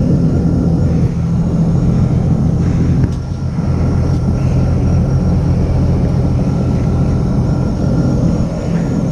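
Supercharged three-cylinder Rotax engine of a Sea-Doo RXP-X 300 personal watercraft running at low speed, a steady hum that dips briefly about three seconds in.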